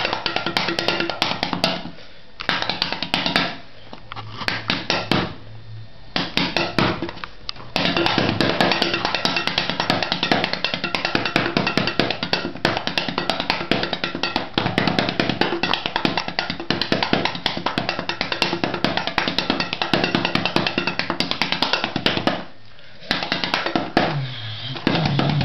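Fast drum solo played on empty Pringles chip cans: a dense run of sharp taps broken by a few short pauses.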